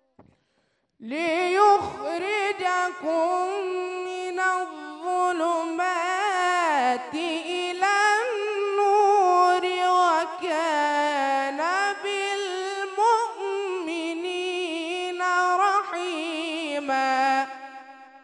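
A young man reciting the Quran solo in a melodic, ornamented chant, one voice holding long melismatic phrases with brief breaths between them. It begins about a second in and dies away near the end.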